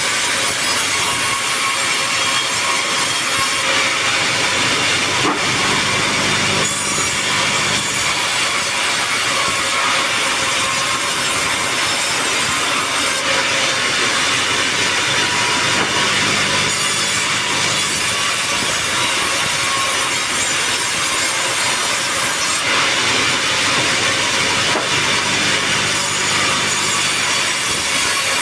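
Sawmill saw cutting steadily through a teak log: a continuous rasping saw noise with a low machine hum beneath it.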